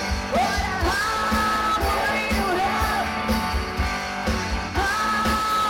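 Live band music: a brass section of trombone, saxophone and trumpet over a steady drum beat, with singing.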